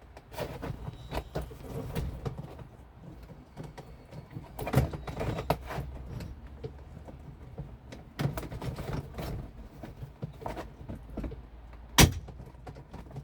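Irregular metallic clicks, knocks and clatter of hand work on a boat's bimini frame fittings, with one sharp knock near the end, over a low steady rumble.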